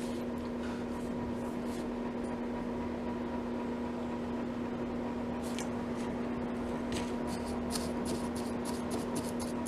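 A steady low electrical hum, with faint light taps and scrapes from about halfway in.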